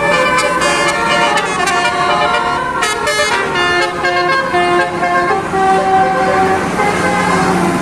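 Indonesian bus 'telolet' musical horn of the basuri type, playing a quick tune of shifting notes with a longer held note about five seconds in.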